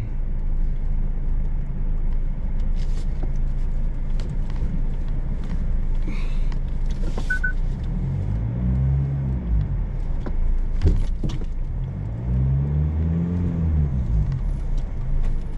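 Vehicle engine and tyres on a rough dirt track heard from inside the cab, the engine revving up and easing off twice, about 8 and 13 seconds in. Loose things in the cabin rattle and click over the bumps.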